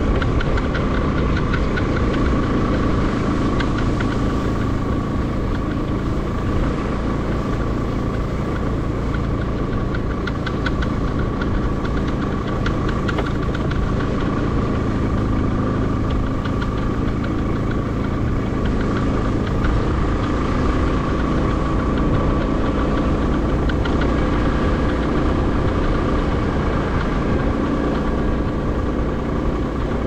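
Motorcycle engine running steadily at an even cruising pace, a constant drone with a thin steady whine above it.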